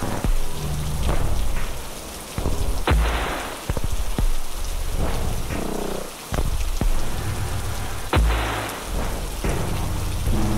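Background soundtrack of steady rain and thunder over low sustained music tones, with two heavy thunder-like booms about three seconds and eight seconds in.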